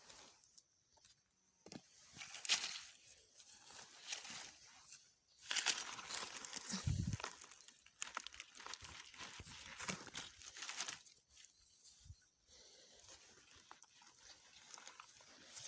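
Dry leaves and plants rustling and crackling in irregular bursts as someone works by hand through dry undergrowth, picking wild krachiao (Siam tulip) flowers, with a dull low thump about seven seconds in.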